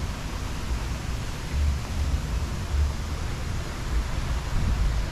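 Wind buffeting a phone's microphone outdoors: uneven low rumbles that swell and fade, over a steady hiss.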